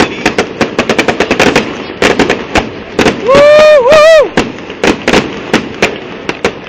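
Fireworks going off in a rapid string of sharp bangs and crackles, several a second, very loud. About three seconds in, a loud high-pitched shriek lasts about a second over the cracks.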